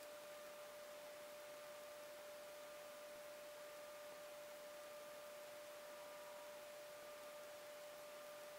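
A faint, steady pure tone held at one unchanging pitch, over light hiss.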